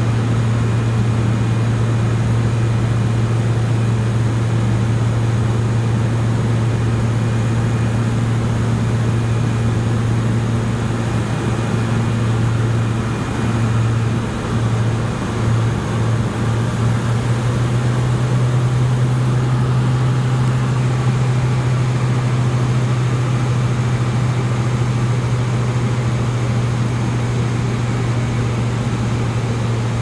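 Twin Otter DHC-6-300 cabin drone from its two turboprop engines and propellers in cruise, a steady low hum over rushing noise. About halfway through the hum wavers and beats for a few seconds, then settles at a slightly higher pitch.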